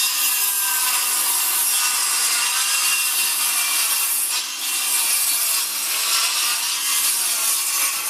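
Milwaukee circular saw cutting through a wooden pallet deck board, a steady loud high-pitched cutting noise with small dips in level as the blade feeds through the wood.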